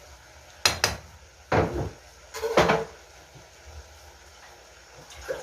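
Kitchen handling clatter: two sharp knocks just under a second in, then two short, louder rattling clatters, like a cupboard door and containers being handled.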